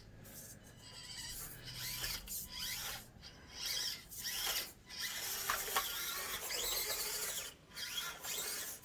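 An Axial Deadbolt RC crawler's electric motor and gears whining in short bursts that rise and fall with the throttle, with its tires scraping and rubbing over the course.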